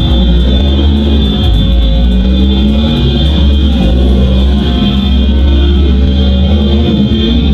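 Loud background music with guitar, a rock-style track.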